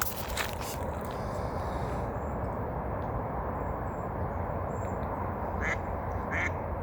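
Footsteps crunching on a trail for about the first second, then a steady background rush, with a duck quacking twice near the end.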